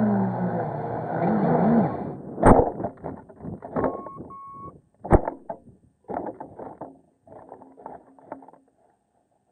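Small brushless quadcopter motors winding down, their pitch falling, then a string of scattered knocks and clatters. The two sharpest knocks come at about two and a half seconds and about five seconds.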